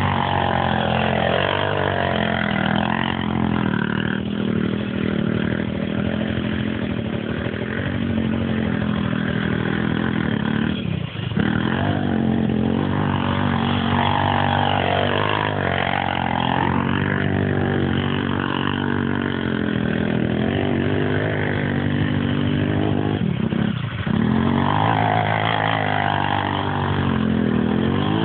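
Bashan 200 quad bike's 200cc engine running as it is ridden around, its pitch repeatedly swelling and falling with the throttle, and twice dropping off for a moment, once around the middle and once near the end.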